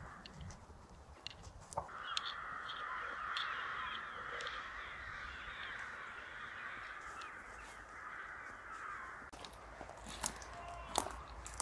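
Crows cawing together in a continuous, noisy chorus from about two seconds in until near the end, with a few light clicks scattered through.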